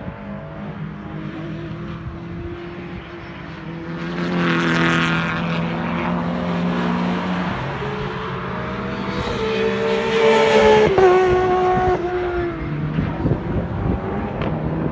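Time-attack race cars running at speed on the circuit, their engines revving hard as they pass. Two passes stand out: one about four seconds in, and a louder one about ten seconds in that drops in pitch as it goes by.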